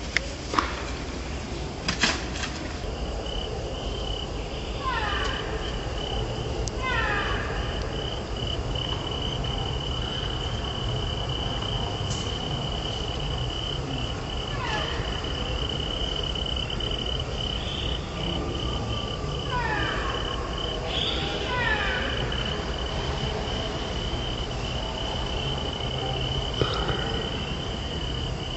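Outdoor woodland ambience: an insect's steady high-pitched drone sets in a few seconds in, while a bird calls every few seconds in short runs of falling notes. Two sharp clicks come near the start, over a low rumble.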